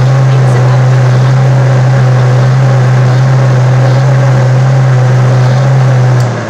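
Countertop blender motor running at one steady speed, blending quinoa and chia seed batter, then switched off just before the end and winding down.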